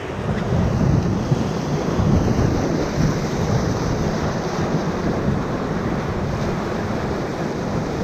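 Whitewater rapids rushing and crashing around an inflatable raft, with a dense low rumble of wind buffeting the action camera's microphone.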